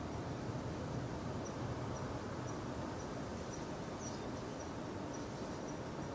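Faint cricket chirping, a short high chirp about twice a second, over a steady low background noise.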